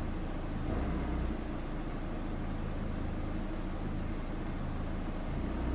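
Peugeot car engine idling steadily, heard from inside the cabin, with the AL4 automatic gearbox in reverse and the handbrake on. There is a slight swell in the hum about a second in and again near the end.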